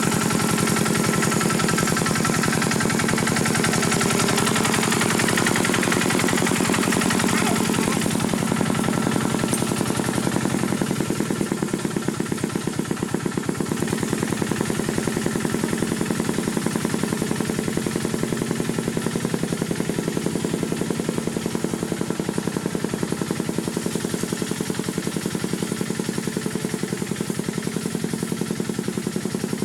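Khmer tractor engine running steadily with a rapid, even chugging, easing slightly in level about eleven seconds in.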